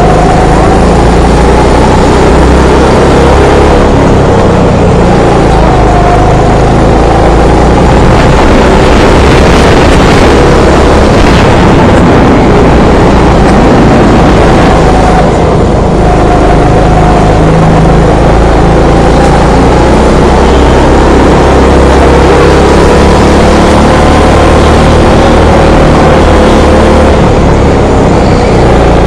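Go-kart engine running hard through a practice lap, its pitch slowly rising and falling as the kart accelerates and slows through the corners. The sound is loud and continuous, with a heavy rushing noise underneath.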